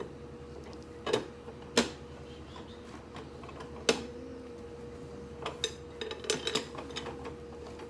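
Parts of a candy vending machine knocking and clicking as they are handled and fitted back together: three sharp knocks, then a run of lighter clicks near the end, over a faint steady hum.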